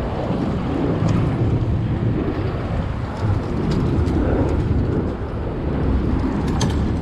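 Steady low rumble of road traffic with wind buffeting the microphone. A few faint clicks near the end.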